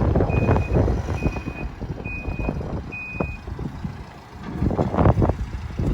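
Terex TLB 840R backhoe loader's reversing alarm beeping four times, about one beep a second, over the machine's engine running: the backhoe is backing up. The beeping stops about three and a half seconds in, followed by a few clunks.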